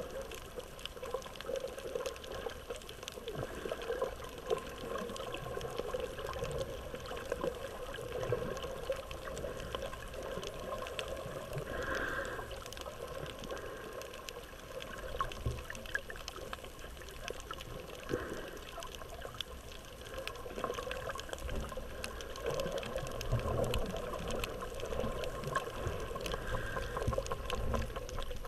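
Underwater sound picked up by an action camera held below the surface: a steady, muffled wash of water scattered with many small clicks, and a few soft low swells.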